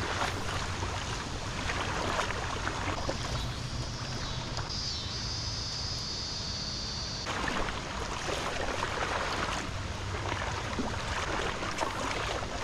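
Creek water flowing over a shallow riffle, a steady rushing hiss, with some wind rumble on the microphone.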